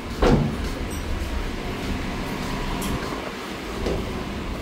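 Footsteps and a steady low rumble inside an enclosed boarding gangway, with one loud thump shortly after the start and a few fainter knocks later.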